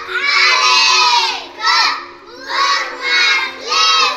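A group of young children chanting loudly in unison: one long phrase, then four short shouted lines, with a quiet stepping backing tune underneath.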